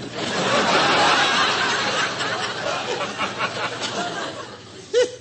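Live studio audience laughing at a punchline, loudest in the first two seconds and dying away.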